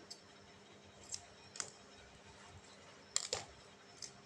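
Scattered light clicks and taps of small phone parts and tools being handled during a smartphone screen replacement, a cluster of louder clicks a little past three seconds in.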